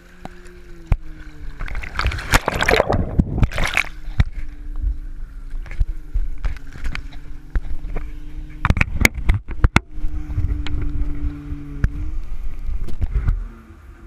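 Yamaha jet ski engine running low and steady, its pitch drifting slightly, with lake water slapping and splashing against the hull and the low-mounted camera in two loud spells, around two to four seconds in and again around nine seconds in.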